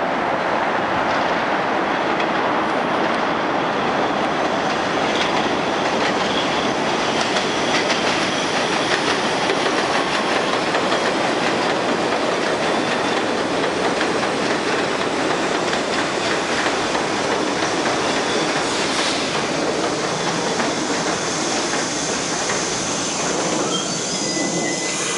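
R62A subway train running into an elevated station and slowing to a stop: a steady loud rumble of the cars on the rails, with a thin high squeal from the wheels and brakes in the later part.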